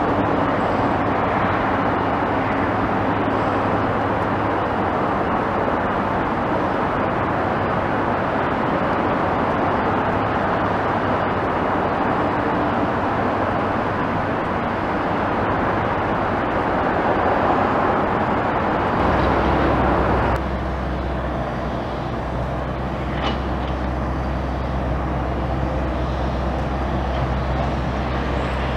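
Steady outdoor engine and traffic-like rumble with a low hum, changing abruptly about twenty seconds in.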